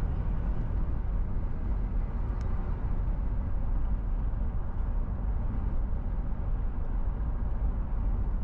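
Car driving along a city street, heard from inside the cabin: a steady low rumble of engine and tyres on the road.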